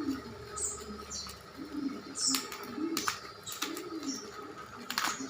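Birds calling in the background: short, high, falling chirps and repeated low cooing calls. A few sharp clicks cut across them, the loudest about two, three and five seconds in.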